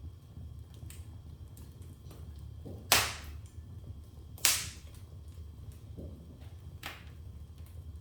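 Wood fire burning in a fireplace: a steady low rumble of flames with light crackling, and two loud sharp pops about three and four and a half seconds in, then a smaller pop near the end.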